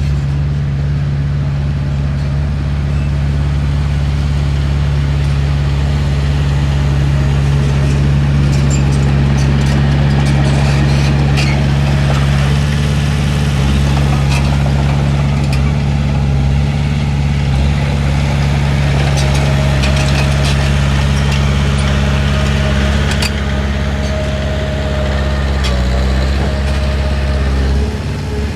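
Komatsu D31P bulldozer's diesel engine running steadily, with scattered metallic clanks and knocks through the middle of the stretch.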